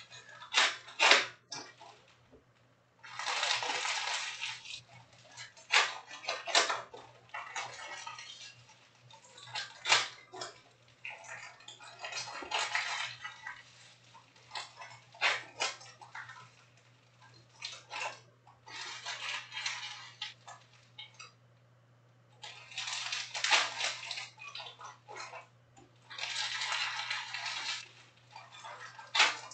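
Foil trading-card packs being torn open and crinkled, with cards shuffled and tapped onto stacks. Rustling spells of a second or two come every few seconds, with sharp clicks of the cards between them.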